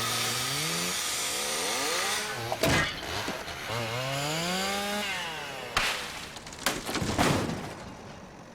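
Chainsaw revved twice, its engine pitch rising each time, with sharp cracks and knocks between and after the revs.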